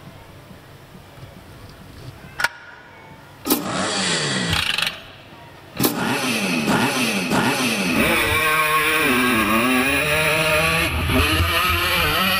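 Motorcycle engine sound for a clown's mime, with no real motorcycle in the ring: a few sharp clicks, a short burst of engine noise about three and a half seconds in, then from about six seconds a continuous revving whose pitch sweeps down and back up.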